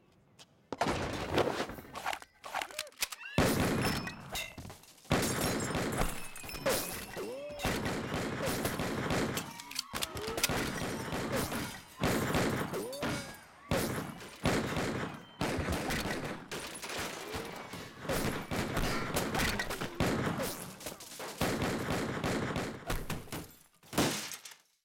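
Sustained rapid gunfire from a film shootout, many shots packed close together and overlapping. It starts about a second in and cuts off abruptly near the end.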